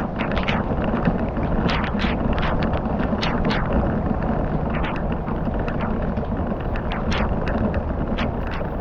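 Campfire crackling, with irregular sharp pops and snaps several times a second over a steady rushing, rumbling background.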